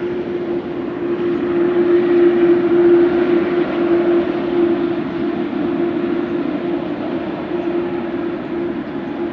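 Boeing 787-8 Dreamliner's GEnx-1B turbofan engines running as the airliner rolls along the runway after landing: a steady hum with one held tone over rushing jet noise, swelling a little a couple of seconds in.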